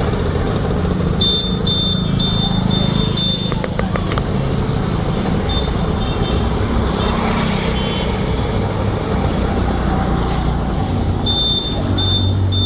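Steady engine and road noise from a vehicle travelling along a street, with two runs of short, high electronic beeps, a few a second: one about a second in and one near the end.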